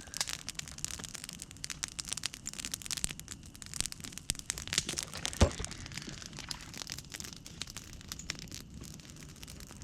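Campfire of dry sticks crackling and popping with many irregular small cracks, one sharper pop about five and a half seconds in.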